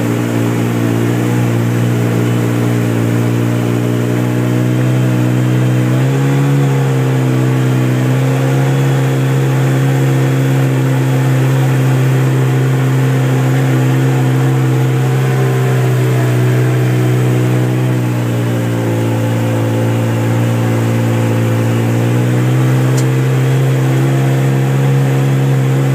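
Polaris RZR side-by-side's engine running steadily at a constant pace, its pitch stepping up about six seconds in and again a few seconds before the end.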